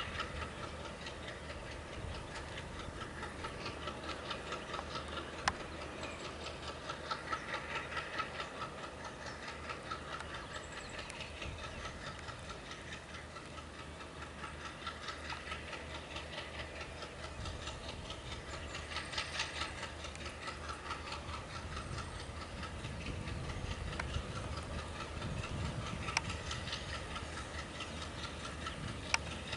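Diesel locomotive of a passenger express train approaching slowly, with a low engine rumble that grows stronger in the second half. A steady, fast ticking runs over it throughout.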